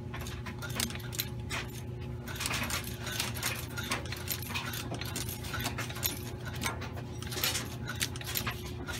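Hand-cranked sewing machine running as it stitches through thick layers of fabric, plastic and foam, with rapid, irregular mechanical clicking and rattling from the needle and crank mechanism.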